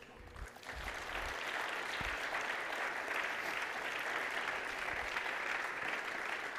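Church congregation applauding, a steady wash of clapping that swells in about half a second in and holds.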